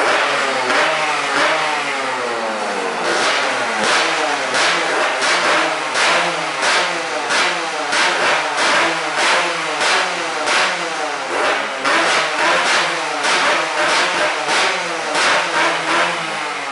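Yamaha RD 135 two-stroke single-cylinder motorcycle engine running with its speed rising and falling in a steady rhythm, about two surges a second. This is the noise the owner is concerned about.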